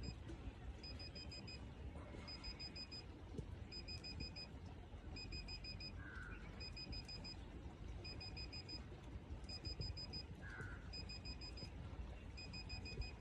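Satellite finder meter beeping as a DishHome dish is aligned: short groups of rapid high pips repeating a little more than once a second, the tone that tells the installer the meter is picking up the satellite signal.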